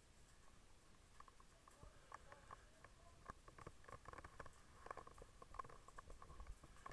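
Faint irregular crackling and popping from a fire burning in a fire-training compartment, growing busier from about a second in.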